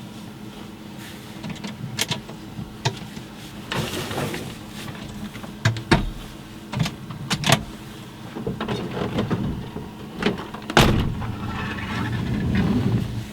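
Irregular knocks, clicks and thuds, as of a van door and gear being handled, over a steady low hum. The loudest knock comes about eleven seconds in.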